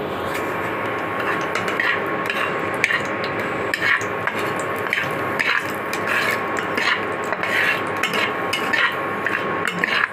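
Dried red chillies sizzling in a little hot oil in a kadai, with irregular sharp pops and crackles. Under them runs a steady hum with a thin high whine from the induction cooktop.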